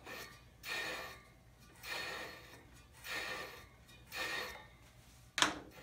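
Hand-spun spoked motorcycle wheel: a swishing rub comes round about once every second and a bit, once per turn of the wheel.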